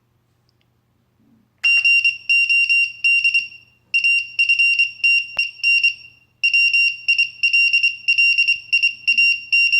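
High-pitched electronic beeping keyed in Morse code, short dots and longer dashes from a serial ASCII-to-Morse converter spelling out typed text. The beeping starts about two seconds in and pauses twice briefly between groups.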